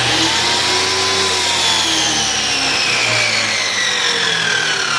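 Corded electric circular saw started and running free: the motor whine climbs for about a second, then its pitch falls slowly and steadily as it winds down.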